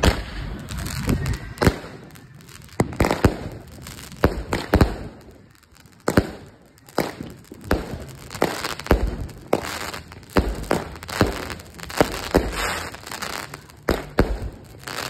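Fireworks going off: an irregular string of many sharp bangs and crackles, several a second at times, with short lulls between.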